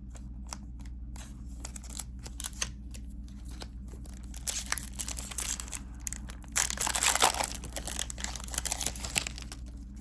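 Plastic wrapper of a Disney Lorcana booster pack crinkling as it is handled and torn open, with scattered light taps at first and the loudest tearing and crinkling about seven seconds in.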